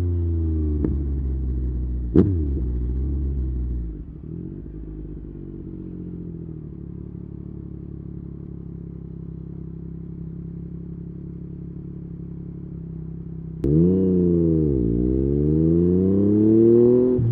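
Yamaha MT-09's inline three-cylinder engine with an Akrapovic exhaust, dropping back from revs with a sharp crack about two seconds in, then idling steadily for about ten seconds. Near the end it is blipped hard: the revs rise, dip and climb again to a peak.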